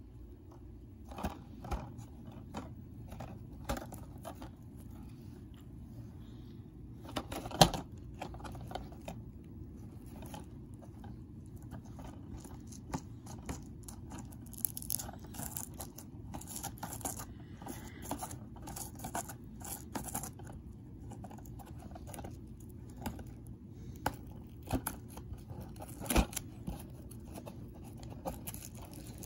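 Plastic shrink-wrap on a DVD case being handled and picked at with the fingers: scattered crinkles, scratches and small clicks, with a sharper snap about seven and a half seconds in, over a steady low hum.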